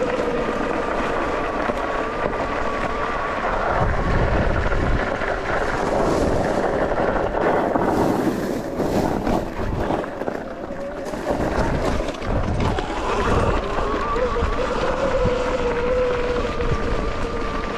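Sur-Ron X electric dirt bike being ridden: its electric drive gives a steady whine that wavers up and down in pitch with the throttle. The wind buffets the microphone throughout. From about six seconds in, the whine drops away for several seconds under rougher noise and knocks, then comes back.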